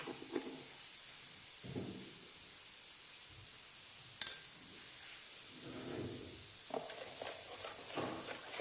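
Faint steady hiss with a single sharp click about four seconds in and a few soft knocks. Near the end a spoon starts stirring salt into water in a plastic basin.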